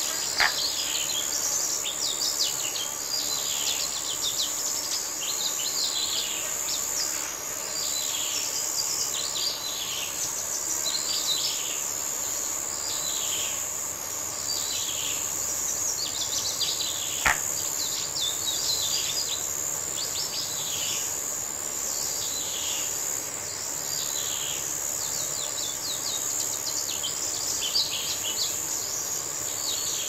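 Countryside ambience: a steady high insect trill, like crickets, under birds repeatedly giving short falling calls about once a second. Two sharp single clicks stand out, one about half a second in and one about halfway through.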